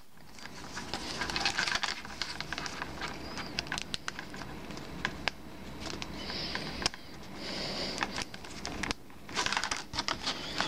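Pieces of cheap plastic toy train track being handled and snapped together: scattered light plastic clicks and taps with some rustling.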